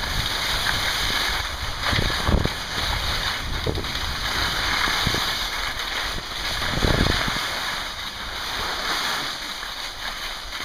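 Skis scraping and hissing over icy, hard-packed snow on a downhill run, with wind rumbling on the microphone and several low thumps from bumps in the ride.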